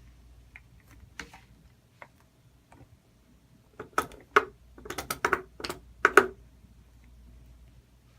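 Slime being stirred with a spoon as it forms: sticky clicks and taps, scattered at first, then a quick run of louder ones about four to six seconds in.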